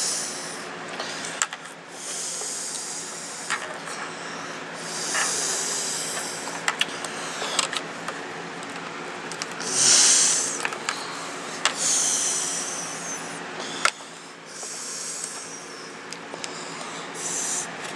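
Handling noise from work inside a laptop: bursts of plastic rubbing and scraping with scattered small clicks, over a steady hum, as a CMOS battery plug is worked toward its awkward connector.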